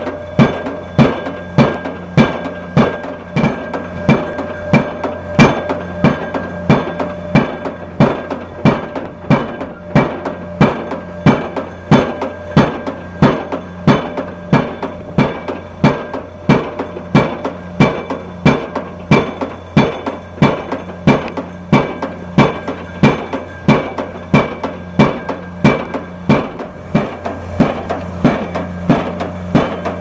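Junttan PM 25H pile-driving rig's hydraulic impact hammer striking a precast concrete pile in a steady run of sharp blows, about one and a half a second, over the rig's steady engine hum.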